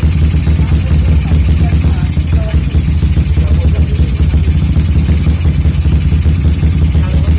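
Small motorcycle engine running steadily near idle on a PWK UK30 carburetor whose jets are too large for it, so it runs rich, rough and hollow.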